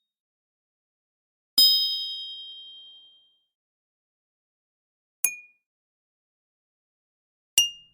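Three separate bell dings with silence between them. The first, about one and a half seconds in, rings and fades over nearly two seconds; the other two, later on, are short and die away quickly.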